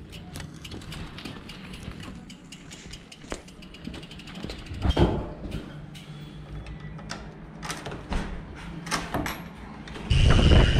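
A bicycle being wheeled along by hand and a wooden door opened: scattered clicks and knocks, with a louder clatter about five seconds in. Near the end, loud wind rush on the microphone cuts in abruptly.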